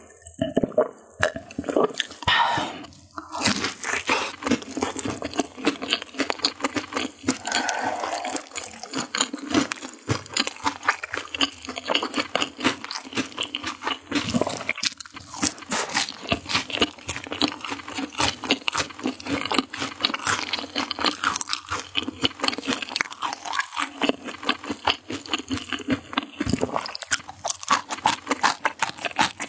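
A few gulps of cola, then close-up crunching and chewing of crisp fried chicken coating: rapid, sharp crackles, many per second, that go on steadily.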